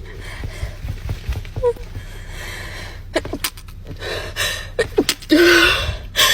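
A woman gasps and breathes in sharp, uneven catches while a nasal swab tickles her nose. About five seconds in she lets out one loud sneeze, a brief 'ah' and then a burst of breath lasting about a second.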